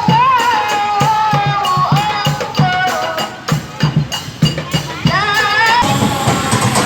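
Music with a wavering sung melody over a steady drum beat; about six seconds in the melody stops and a rougher, noisier sound takes over.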